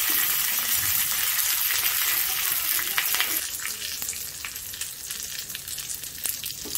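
Curry leaves, crushed garlic and mustard seeds sizzling in hot oil for a tadka, stirred with a spatula. The sizzle is loudest at first and eases after about three and a half seconds, with sharp crackling pops throughout.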